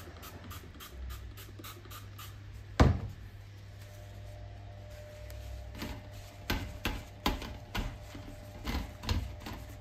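A plastic spray bottle set down on a glass tabletop with one sharp knock, then a series of lighter knocks and rubbing as a paper towel wipes a metal wire fan guard.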